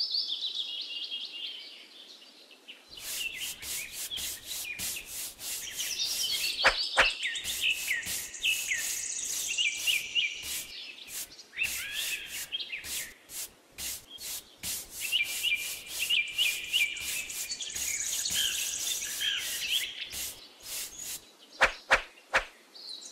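Paintbrush bristles sweeping and scraping sand across a plastic tray in many quick, short strokes that start about three seconds in. Birds chirp in the background.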